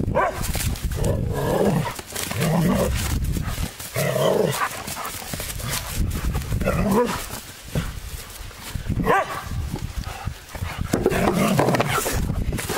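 An Ibizan Hound vocalizing in about six separate bursts, each a second or so long, with its pitch bending up and down.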